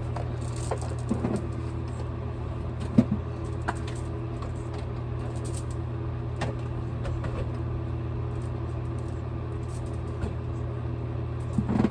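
A few light clicks and taps of small items being handled and put away, over a steady low hum.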